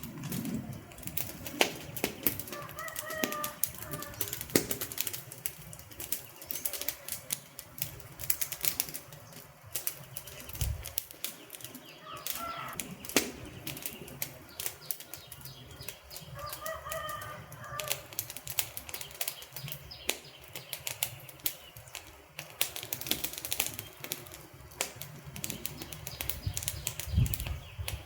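Wood fire crackling, with many sharp pops and snaps at irregular intervals over a low, steady rumble of burning. Three brief pitched sounds come through, about 3, 12 and 17 seconds in.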